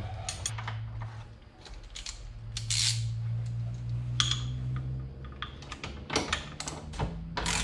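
Scattered metallic clicks and clinks of hand tools and bolts as a traction bar's front end is bolted into its mount under a car, the loudest near the middle and a quick run of clicks near the end, over a low steady hum.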